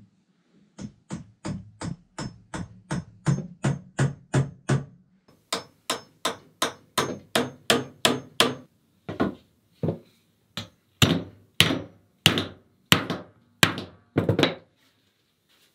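Hammer driving nails into pine trim boards: a long, even run of sharp blows, about three a second, with a slight metallic ring. Near the end the blows come slower and harder, roughly two a second.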